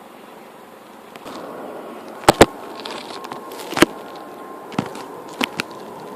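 A few sharp knocks over a steady background hum. The loudest is a quick pair about two seconds in, with single weaker knocks later on.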